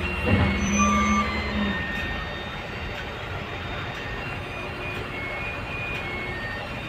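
Truck engine and cab noise heard from inside the driving cab as the truck creeps along, a steady rumble. A low hum is held for about a second and a half near the start, and the noise eases a little after about two seconds.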